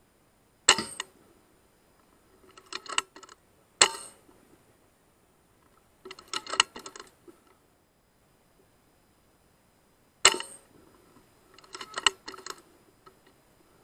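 Three shots from a sub-12 ft-lb .177 FX Wildcat Mk III Compact PCP air rifle, sharp single cracks about a second in, near four seconds in and about ten seconds in. Each is followed a second or two later by a short run of light metallic clicks, the rifle's action being worked to load the next pellet.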